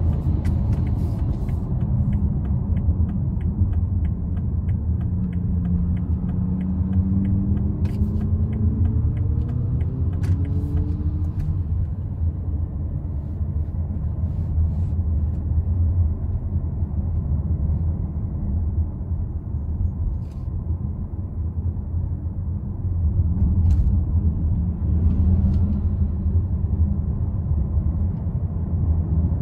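In-cabin sound of a BMW X3 xDrive30d (G01) on the move: a steady low rumble of its 3.0-litre inline-six diesel and the tyres. Its note rises in a few short steps about five to eleven seconds in as the car picks up speed. A light regular ticking, about three a second, runs through the first ten seconds or so.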